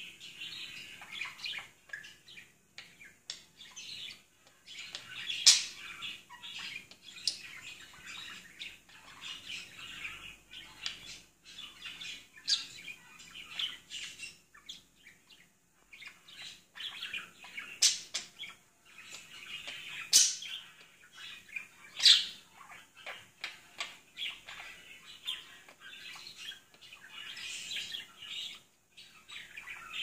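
Budgerigar chattering and warbling almost without a break, in the excited state of a budgie worked up by a treat, with a few sharp, loud chirps standing out from the chatter.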